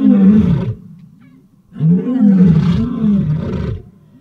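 A pair of lions giving their dawn territorial roar: deep, loud roaring calls in bouts, one ending under a second in and another from about two seconds in to near the end.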